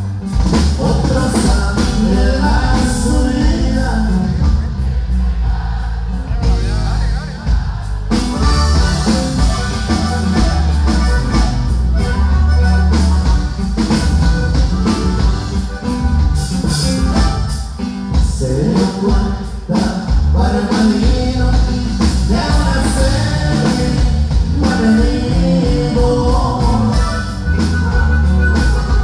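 A norteño band playing live through a PA, with electric bass, acoustic guitar and drums under singing.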